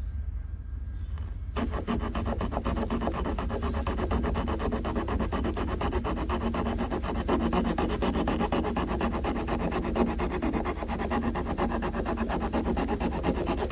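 A small folding pocket-knife or multitool saw blade cutting softwood by hand. It starts about a second and a half in and goes on in fast, steady back-and-forth rasping strokes.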